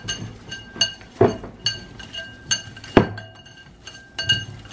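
Glass mixing bowl clinking as hands knead ground beef in it: a series of sharp clinks, about two a second, each with a short bright ring.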